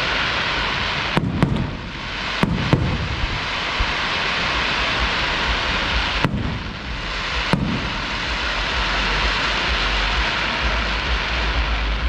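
Fireworks display: about six sharp bangs of bursting shells, in pairs a second or so into the display, again soon after, and twice more in the middle, over a continuous dense crackling hiss.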